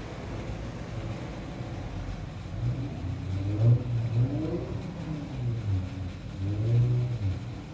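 A motor's low drone. From about three seconds in, its pitch rises and falls several times.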